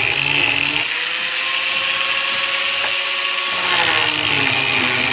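Electric angle grinder fitted with a homemade wooden disc, running against the edge of a wooden plank and grinding the wood. The motor whine rises in pitch about a second in and drops back after three and a half seconds, over a steady rasp of the disc on the wood.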